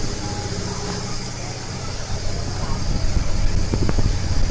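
Sightseeing boat's motor running steadily with a low drone, heard from inside the passenger cabin while under way.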